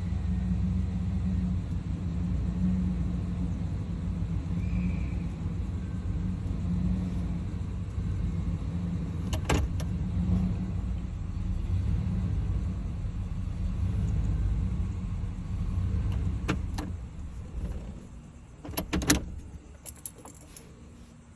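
Chevrolet 350 TBI small-block V8 idling roughly with an uneven low rumble, a rough idle that new plugs, wires, EGR valve and fuel filter have not cured. About seventeen seconds in the engine dies away, and a few sharp clicks and rattles follow.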